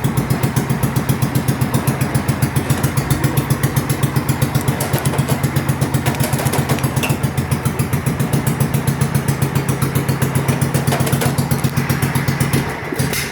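Mud-racing lawn mower's engine idling out of gear, running steadily with an even, fast pulsing beat.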